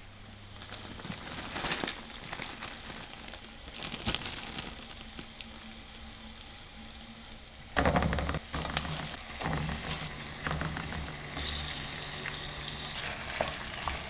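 Food sizzling in a hot frying pan, first onions frying steadily, then a sudden louder burst about eight seconds in as minced meat goes into the pan, followed by the clatter of stirring over a louder sizzle.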